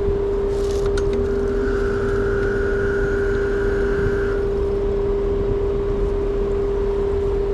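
Two-stage Trane air conditioner's outdoor unit running in high stage: compressor and condenser fan give a steady, loud hum with low rumble. There is a short hiss about half a second in, and a fainter higher whine for a few seconds.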